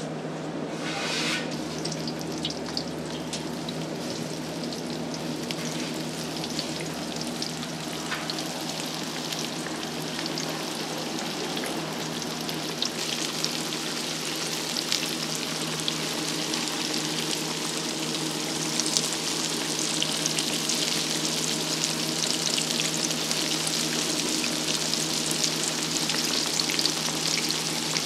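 Scallion bread-stick dough strips deep-frying in a large wok of hot oil: a steady sizzle with many fine crackles, growing louder and busier from about halfway through.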